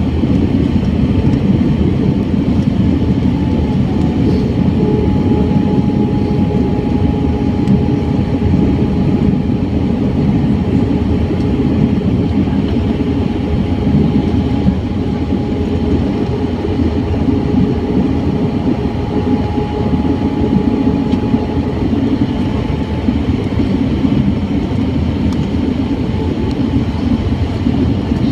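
Airbus A320 cabin noise at a window seat over the wing, in flight on descent: a steady roar of the engines and rushing air with a deep rumble. A thin steady tone rides over it from a few seconds in until it fades out a little after twenty seconds.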